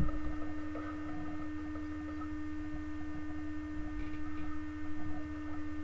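A steady electrical hum on one held pitch, with fainter higher tones above it and a low, uneven rumble underneath.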